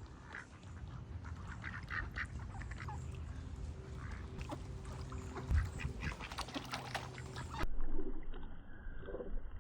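Ducks quacking, many short calls in quick succession over a low rumble. About three-quarters of the way through the sound cuts abruptly to a different recording with lower, softer calls.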